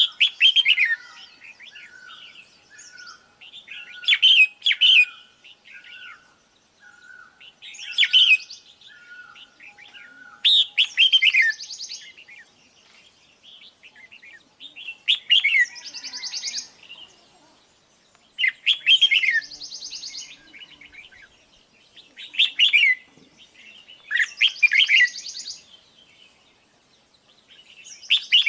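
Red-whiskered bulbul calling: loud bursts of chirping notes every three to four seconds. Softer short notes repeat between the bursts in the first half.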